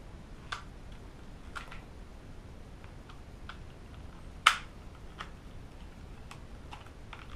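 Hard plastic clicks and taps as a clip is fitted onto a Nerf Rival magazine, a handful of scattered clicks with one much louder click about four and a half seconds in.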